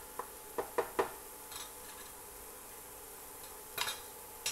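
Wooden spoon stirring a tomato, onion and chile sauce in a nonstick frying pan, knocking lightly against the pan several times in the first second. A brief clatter near the end.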